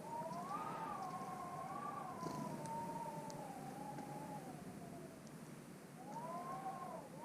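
Long, drawn-out, wavering animal call, rising and falling in pitch for about five seconds. A shorter arched call follows about six seconds in.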